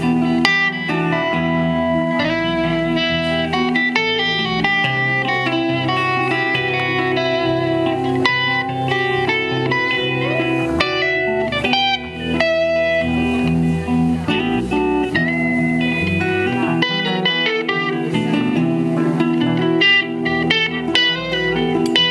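Live band playing an instrumental passage with no vocals: an electric lead guitar plays a line of many short notes over electric bass and a second electric guitar, all through amplifiers.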